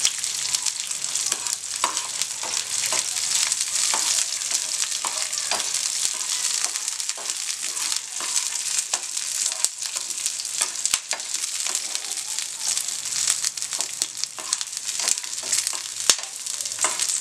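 Whole garlic cloves sizzling in hot oil in a kadai, with many small pops and ticks, while a slotted spatula stirs them around the pan.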